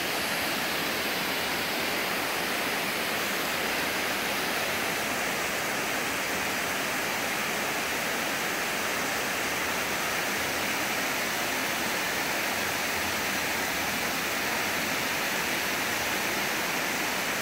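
Water pouring over a concrete dam spillway into the pool below: a steady, unbroken rush.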